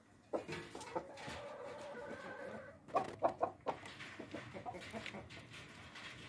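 Chickens clucking: a drawn-out call in the first half, then a quick run of four sharp, loud clucks about three seconds in, followed by softer clucks.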